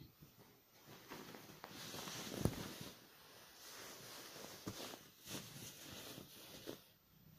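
Faint rustling and handling noises with scattered soft knocks, and one sharper thump about two and a half seconds in.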